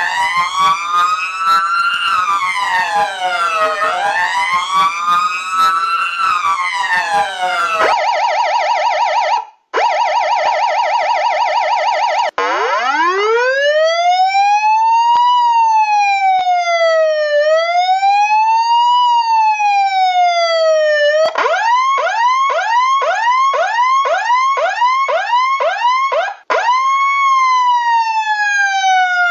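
Electronic emergency-vehicle sirens cycling through patterns. First a wail with several layered tones sweeping up and down, then a fast warble about eight seconds in. Then a slow wail rising and falling every couple of seconds, then a rapid yelp of about two rising chirps a second, and near the end a wail falling away.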